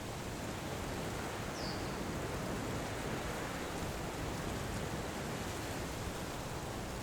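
Wind rustling steadily through hillside vegetation, a constant rushing hiss. About one and a half seconds in there is a single short, faint, high chirp.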